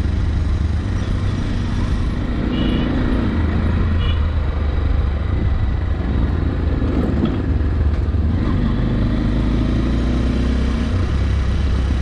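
Zongshen Cyclone RX1 motorcycle engine running steadily at low speed as the bike is ridden slowly, heard from the rider's seat together with road and wind noise.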